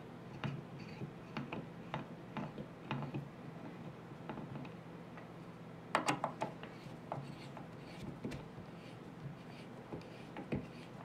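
A steel threaded rod is screwed by hand into a wooden guitar neck heel, its threads catching in the aluminum dowel inside with small irregular clicks and scrapes. A quick cluster of louder clicks comes about six seconds in, over a steady low hum.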